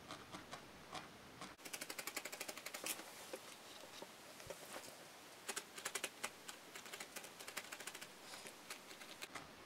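A felting needle stabbing repeatedly through wool into a foam pad: faint quick ticks at about ten a second, in two main runs with scattered single ticks between.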